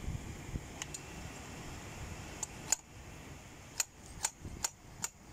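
Metal spanner clicking against a pipe fitting as it is worked to loosen the water outlet line: a few scattered clicks, then a run of sharp metallic clicks about two a second in the second half.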